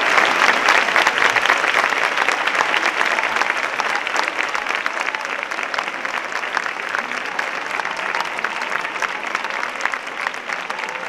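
A large street crowd applauding: dense, continuous clapping that is loudest at first and gradually eases off.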